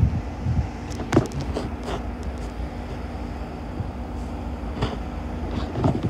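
Low, steady rumble of wind on the microphone mixed with the faint drone of distant approaching diesel freight locomotives, with a few light clicks about one and two seconds in.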